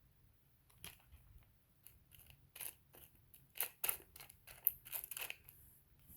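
Small hard pieces, rough opal chips, being handled: an irregular run of quick clicks and scrapes.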